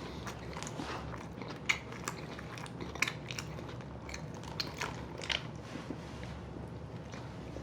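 Mouth sounds of people eating a burger and fries fast: biting and chewing with many small wet clicks. The sharpest clicks come about a second and a half and three seconds in.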